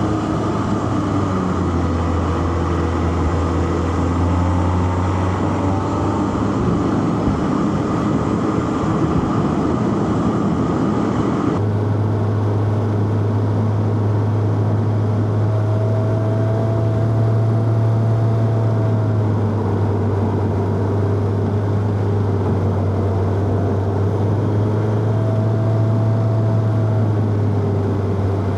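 Four-cylinder petrol car engine running at fairly steady revs, with road and tyre noise. About twelve seconds in, the sound changes abruptly and the hiss above the engine drops away.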